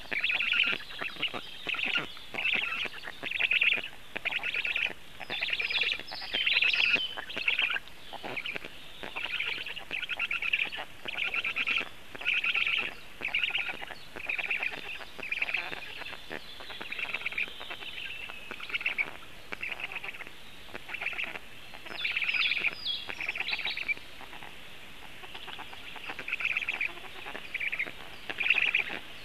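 Black stork chicks in the nest begging: a short rasping call repeated over and over, a little more than once a second, easing off briefly about two-thirds of the way through. A few higher chirps from small birds break in twice.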